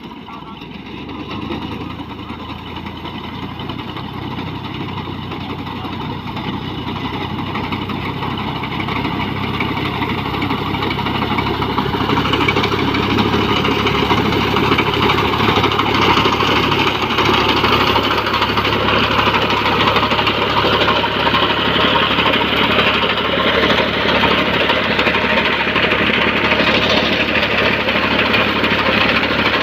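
Tractor diesel engine running with a clattering note, growing louder over about the first twelve seconds and then running steadily.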